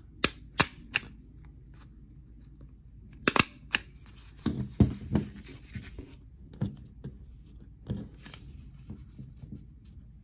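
Desktop stapler being pressed down on the ends of a folded paper flip book: a string of sharp clacks, loudest about three and a half and five seconds in, with paper rustling between them.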